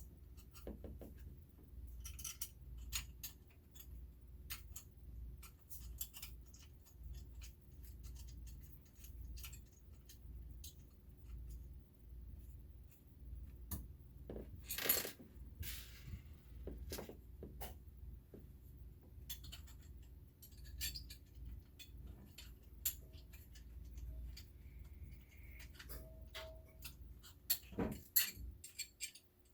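Scattered clicks and small metallic clinks of parts and tools being handled during assembly of a laser engraver, with a louder clatter about halfway through and another near the end, over a steady low hum.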